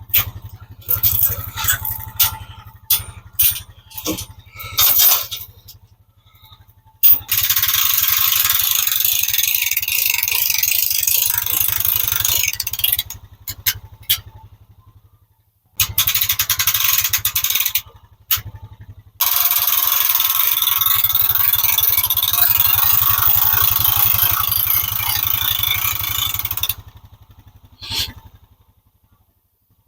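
Portable sawmill running, its engine humming steadily while the blade cuts through a log in long stretches of loud, even rasping, broken by short gaps. A quick run of short bursts comes in the first few seconds.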